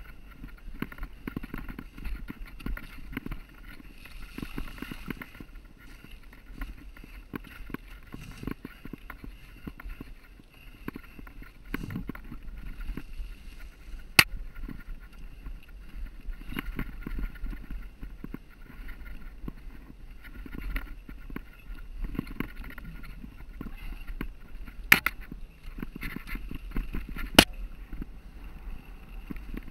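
Mountain bike rattling down a rocky singletrack, tyres crunching over stones and gravel with the clatter of the bike, heard from an onboard camera. Three sharp knocks stand out, one about halfway through and two close together near the end.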